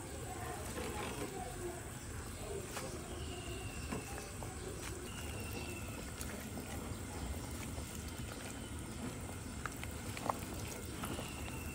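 A pot of vegetable soup simmering, with a metal ladle stirring it and knocking against the aluminium pot a few times, the sharpest knock late on.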